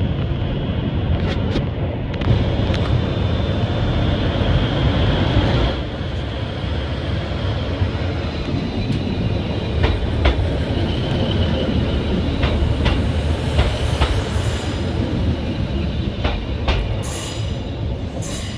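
Class 156 diesel multiple unit running slowly through the station. There is a steady low engine rumble, with scattered wheel clicks over rail joints and a faint wheel squeal in the first few seconds.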